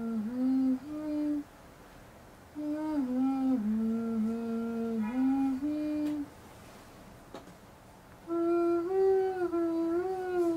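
A woman humming a slow lullaby tune, in phrases separated by pauses of one to two seconds; the last phrase is pitched higher.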